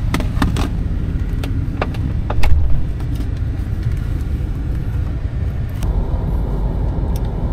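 Chevrolet Silverado pickup running, a steady low rumble heard inside the cab, with a scatter of sharp clicks and knocks as the camera is handled and set in place.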